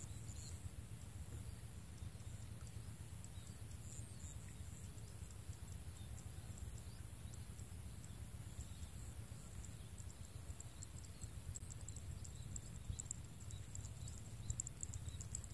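Faint outdoor ambience: a low steady rumble under a thin, steady high-pitched hum, with quick ticking that grows busier near the end.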